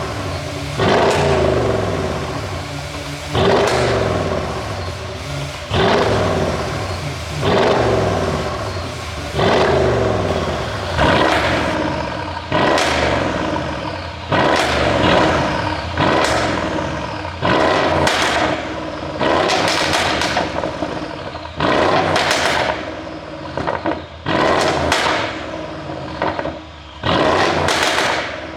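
2013 Mercedes-AMG ML63's twin-turbo V8 being blipped repeatedly, about every two seconds, each rev falling away with pops and crackles on the overrun from its pop-and-crackle exhaust tune.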